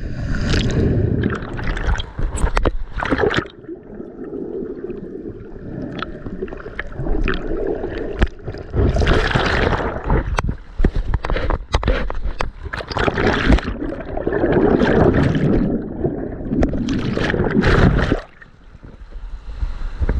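Sea water sloshing and gurgling in irregular surges, with scattered sharp splashes and clicks, loud and close. It eases off briefly near the end.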